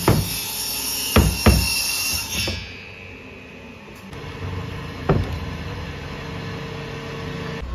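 Background music with a few sharp knocks of metal and wood: two close together about a second in and one more about five seconds in, as a metal bar clamp is fitted and tightened on a pine frame. The music drops in level a little under three seconds in.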